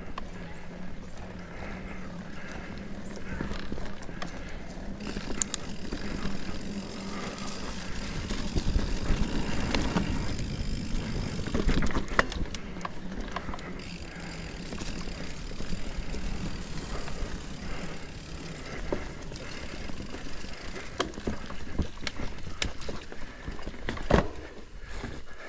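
Mountain bike rolling down a dirt forest singletrack: tyre and trail noise with the bike rattling over bumps, a steady low hum underneath, and sharp knocks now and then, the loudest about a second before the end.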